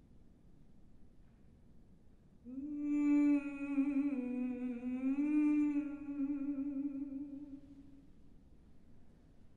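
Unaccompanied mezzo-soprano voice humming one long note with closed lips, starting about two and a half seconds in. The pitch dips slightly midway and comes back up, with a light vibrato, and the note fades out near the end.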